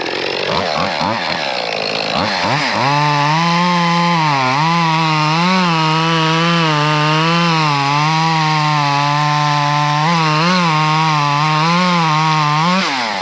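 Small one-handed two-stroke chainsaw revving up, then held at full throttle cutting through a chunk of wood. Its pitch dips briefly several times as the chain bites, then falls away as the throttle is released near the end.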